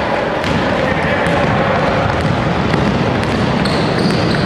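Basketball game din on a gym court: a steady noise of players running, with a few sharp knocks.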